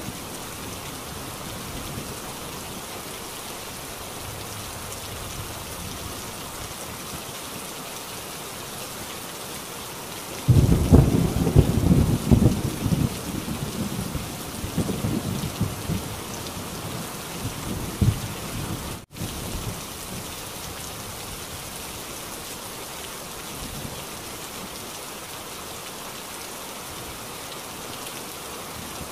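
Heavy rain on a tin roof, a steady even hiss. About a third of the way in, a sudden clap of thunder breaks in and rumbles in waves for about eight seconds before dying away, and the sound cuts out for an instant just after.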